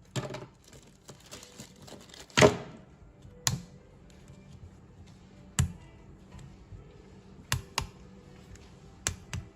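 Plastic action figures being handled, giving irregular sharp clicks and knocks, about eight in all. The loudest comes about two and a half seconds in.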